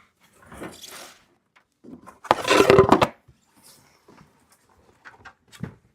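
Wooden hive parts and packing being shifted inside a shipping box. There is one loud scraping, rustling clatter for most of a second about halfway through, with softer knocks and rustles around it.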